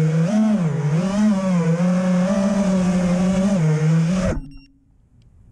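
FPV racing quadcopter's electric motors and propellers whining, the pitch rising and falling with the throttle, then cutting off suddenly about four seconds in.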